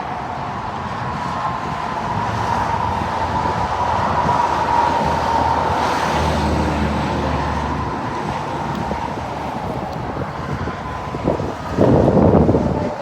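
Motor-vehicle road noise: a steady rushing with a faint whine running under it, and a short, louder burst of noise near the end.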